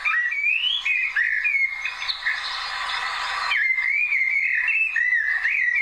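Common blackbird singing: a run of fluty, whistled warbling phrases, with a harsher, scratchy passage about two seconds in that lasts over a second.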